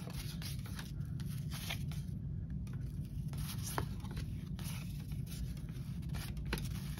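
1986 Topps baseball cards being thumbed through by hand and slid one by one off a stack: a run of light cardboard scrapes and soft clicks over a low steady hum.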